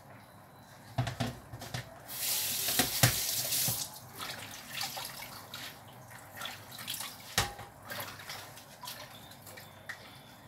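Kitchen tap running into a sink for about two seconds, a couple of seconds in, with scattered clinks and knocks of kitchenware around it and one sharper knock later on.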